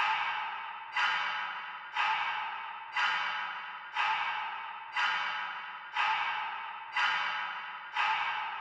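Dark ambient music: a sharp, noisy hit repeating about once a second, each one fading away before the next.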